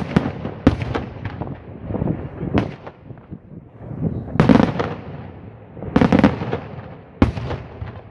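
Daytime fireworks display: aerial shells bursting overhead in about six loud, sharp bangs at irregular intervals of one to two seconds, each trailing into a rolling echo and rumble.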